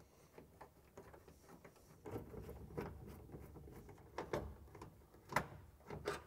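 Hand work on a car dashboard: a screwdriver and metal trim parts clicking, tapping and scraping in scattered small knocks, the sharpest about five seconds in.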